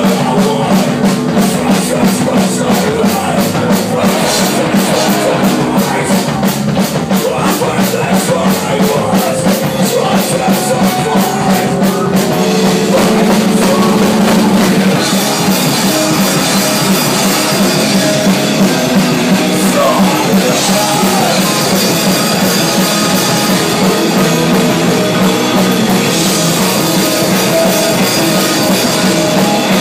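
Live rock band playing loudly, with bass guitar and a drum kit. The drumming is fast and even at first, and the song changes about twelve seconds in.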